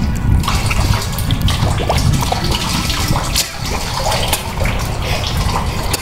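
Canned soup poured from the can onto a person's face, splashing and splattering wetly, with many small wet clicks and crackles.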